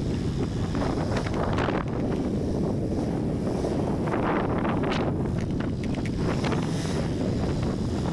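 Wind buffeting the microphone: a dense, steady low rumble with gusts that surge higher now and then.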